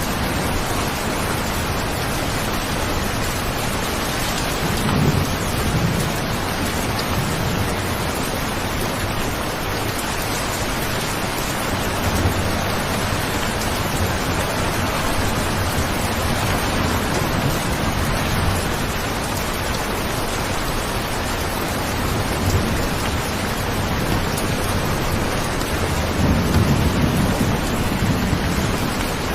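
Steady heavy rain falling, with a few brief low rumbles in the background, the strongest near the end.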